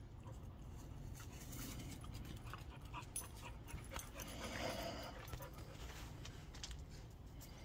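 A large dog panting during play, louder for a moment about halfway through, with scattered small clicks.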